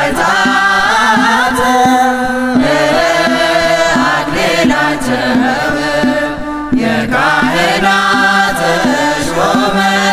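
Ethiopian Orthodox Yaredic hymn (zema) chanted, the melody bending and gliding over a repeating low accompaniment.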